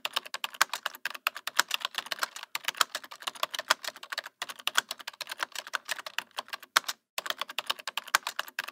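Typing sound effect: a rapid run of keyboard clicks, about eight to ten a second, with a few short pauses, stopping near the end. It goes with on-screen text being typed out letter by letter.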